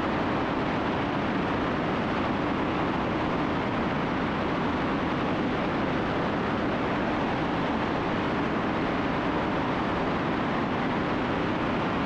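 Steady, unchanging drone of a Cessna T310R's twin engines and airflow, heard inside the cabin.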